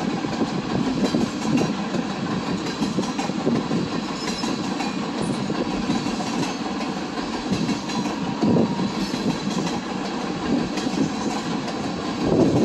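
CPKC freight train's cars rolling past on the rails, a steady rumble of wheels on track.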